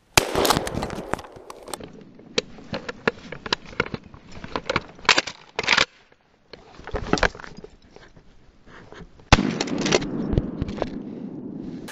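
Footsteps crunching through crusted snow and brush, with jacket fabric and gear rubbing right against a body-worn camera's mic. Irregular crackles, snaps and knocks, with a brief drop to near silence about six seconds in.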